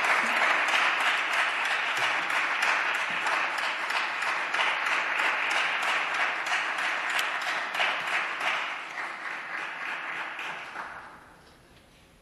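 Applause from deputies in the chamber: steady clapping that dies away about eleven seconds in.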